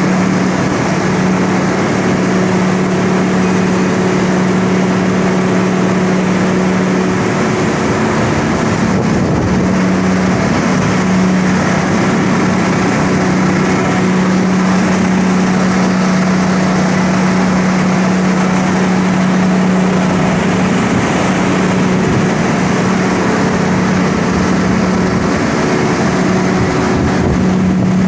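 Sawdust grinder machine running: a loud, steady machine noise with a constant low hum, as the wood grinder and its cyclone dust collector work.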